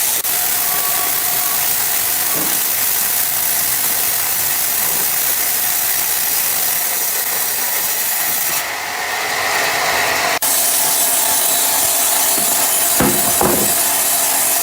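Sawmill saw cutting through an ironwood log: a steady, loud, hissing rasp of the blade in the wood, broken off sharply twice.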